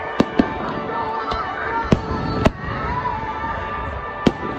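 Japanese hanabi fireworks display bursting in quick succession: about six sharp bangs, several coming in close pairs.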